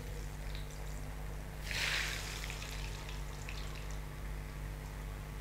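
Breadcrumb-coated potato balls deep-frying in hot oil: a steady bubbling sizzle that swells briefly about two seconds in.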